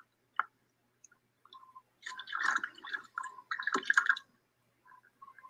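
A dog's paws splashing in the shallow water of a plastic kiddie pool as it steps around and onto a foam boogie board, in two short bursts of sloshing, with faint short clucks from chickens in the background.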